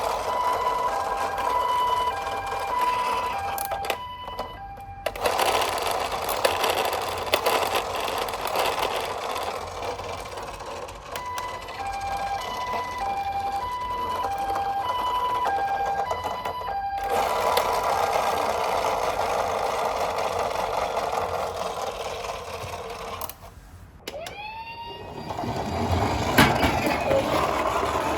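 Toy ambulance's electronic two-tone siren: the Japanese 'pee-po' hi-lo call, alternating between two notes about twice a second, in runs of several seconds. A steady hiss runs under it and cuts out abruptly a few times. About 24 seconds in, a wailing siren tone rises in pitch.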